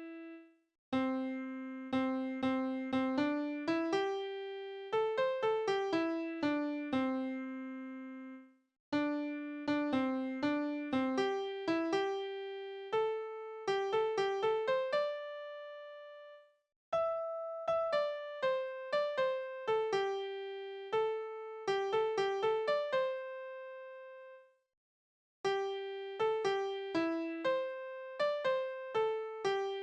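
Computer-rendered piano playback of a school song from Crescendo music notation software: a simple melody over chords, in phrases of about eight seconds, each ending in a brief dead silence.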